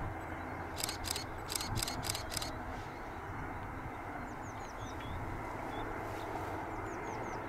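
Steady low outdoor rumble with small birds calling: a quick run of about six rasping notes about a second in, then short downward-sliding chirps in the middle and again near the end.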